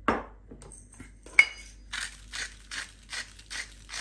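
A hand-twisted spice grinder grinding salt and pepper over a mixing bowl: a knock at the start and a sharp click, then a steady run of grinding strokes, about two or three a second.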